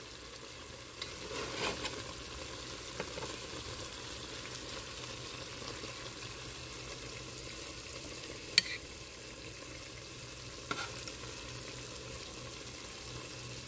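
A metal spoon clinking and scraping against a ceramic plate and a pot as cooked fish is lifted out and laid down: a few sharp clicks, the loudest about eight and a half seconds in, over a steady hiss.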